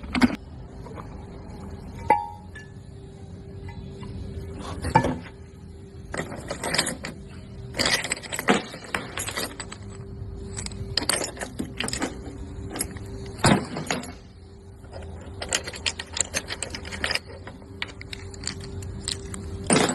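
Irregular metallic clicks and clinks as the gears and broken pieces of a failed differential with a cracked housing are moved and handled, over a faint steady hum.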